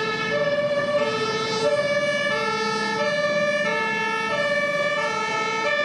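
Two-tone hi-lo emergency siren, alternating steadily between a higher and a lower note about every half second.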